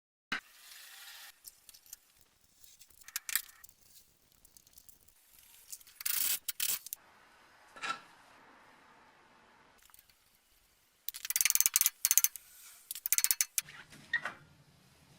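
Metal tools and car parts being handled and worked: scattered sharp clinks and short clattery bursts, with a run of rapid clicking about eleven seconds in.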